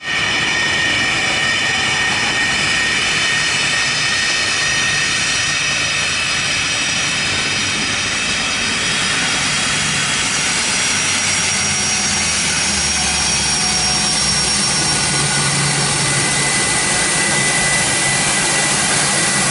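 The four PS-90A turbofan engines of an Ilyushin Il-76TD-90VD cargo jet running on the ground: a loud, steady jet roar with a high turbine whine at several pitches.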